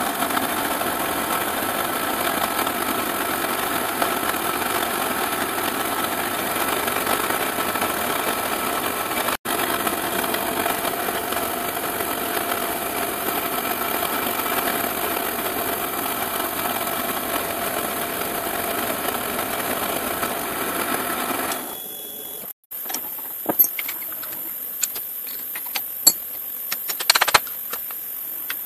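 Milling machine spindle running with a fine engraving bit cutting copper-clad circuit board: a steady machine sound with several held tones. It stops a little over twenty seconds in, followed by a few sharp clicks and taps.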